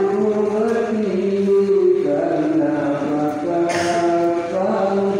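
A group of men chanting together in unison, a held, gently gliding melody typical of Islamic devotional chanting (dzikir).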